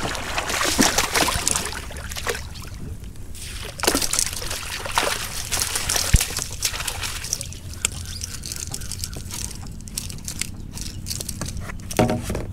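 Hooked smallmouth bass thrashing and splashing at the water's surface in irregular bursts, with water sloshing as a landing net is dipped in to scoop it.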